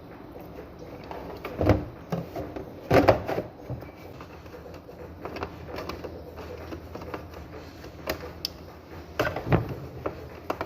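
Scattered knocks, clicks and rattles of hands handling a washing machine's wiring and plastic parts, the loudest knock about three seconds in.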